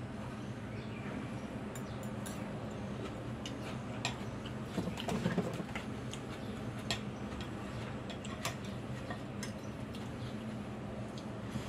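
Eating instant noodles from a ceramic bowl: scattered sharp clicks and clinks of a metal spoon and fork against the bowl with the sounds of eating, a little louder about five seconds in, over a steady low hum.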